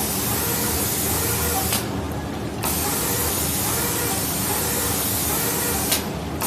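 Automatic spray gun on a reciprocating spray-painting machine hissing as it sprays. The spray cuts off for under a second about two seconds in and again near the end, with a sharp click as it shuts off the second time, over a steady low hum.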